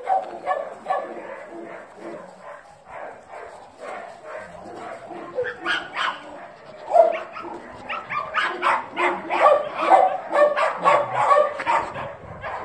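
Dogs barking over and over, the barks coming louder and closer together in the second half.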